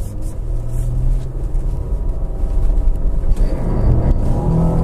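A 2016 Jeep Cherokee's 3.2-litre V6 engine pulling under load as the SUV drives up a snow-covered slope, with a steady low engine note at first that rises in pitch from about three seconds in, over a constant low rumble.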